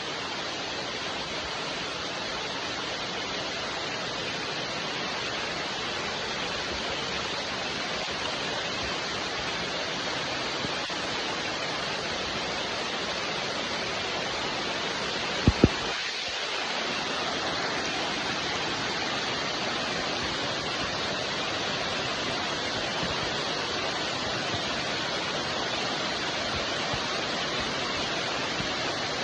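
Steady rain falling, an even hiss. About halfway through come two sharp clicks close together.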